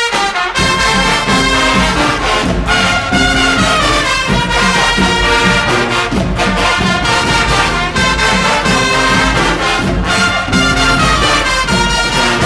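Brass-band music: trumpets and trombones playing a lively tune over a steady beat.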